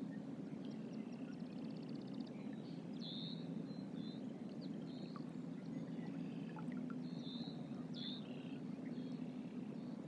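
Steady low rumble of moving river water, with small birds chirping in short high calls every second or so and a fast trill about two seconds in.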